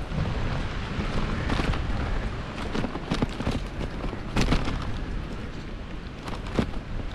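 Wind buffeting the microphone of a moving bicycle as it rides over grass and dirt, a steady low rumble. Scattered sharp knocks and rattles come from the bike jolting over bumps, the loudest about four and a half seconds in.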